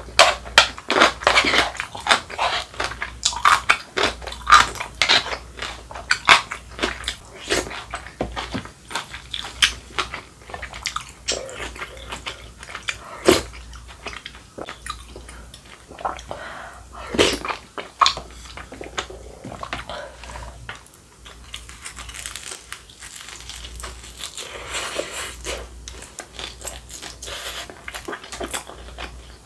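Close-miked eating sounds from rice cake and dumpling soup: chewing and wet mouth clicks, dense in the first ten seconds and softer later, with a couple of louder knocks of a spoon against the bowl about a third and half way through.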